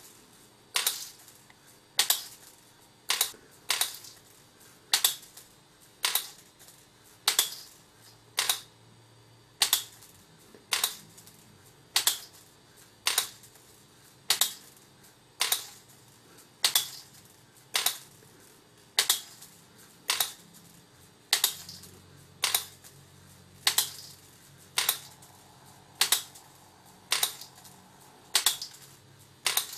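Solenoids of a Bytronic bead sorter clicking sharply about once a second, sometimes twice in quick succession, as they open and shut to drop single white and black beads in turn into the track.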